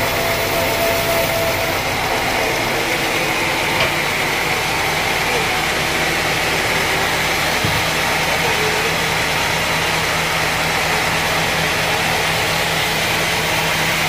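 Band sawmill machinery running steadily, a loud even mechanical noise. A low steady hum joins it a little under eight seconds in.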